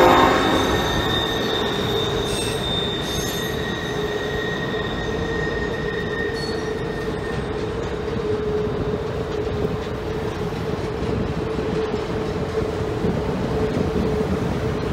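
Passenger train cars rolling across a steel girder trestle, a steady rumble of wheels with a continuous wheel squeal over it. A locomotive horn blast cuts off right at the start.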